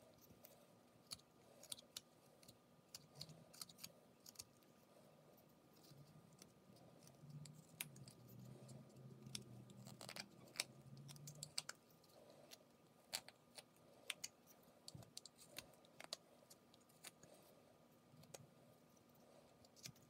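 Whittling knife taking small cuts in a wooden carving: quiet, irregular clicks and scrapes as the blade slices off shavings.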